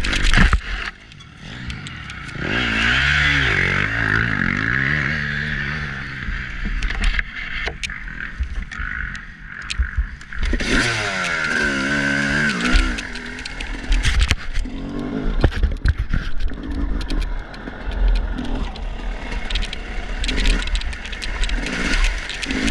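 Dirt bike engine revving up and down in bursts, heard from a handlebar-mounted camera, with a sharp knock right at the start. From about halfway on, frequent short knocks and rattles run over the engine, as the bike and a loose part on it shake on the rough, muddy trail.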